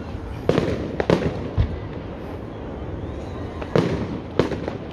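Aerial fireworks shells bursting overhead: a string of sharp bangs, four in quick succession in the first second and a half, then two more after a short lull.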